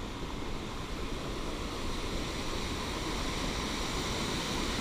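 Rushing white water of a fast mountain stream, a steady noise that grows gradually louder.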